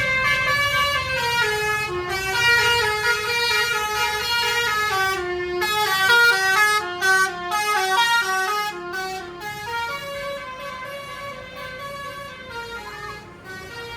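Bus telolet horn, a multi-tone musical horn, playing a tune of short held notes that step up and down, several sounding together. It fades over the last few seconds.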